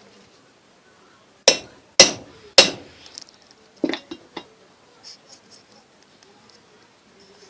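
Three hard hammer blows on metal about half a second apart, each ringing briefly, then a few lighter knocks: a rod being driven against a ceiling fan's bearing to knock the upper plate loose.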